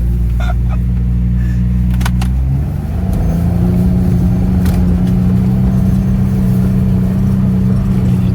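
4x4 off-road vehicle's engine heard from inside the cab, running steadily, then revving up and pulling harder about three seconds in as it pushes through deep snow. A few light knocks come from the vehicle.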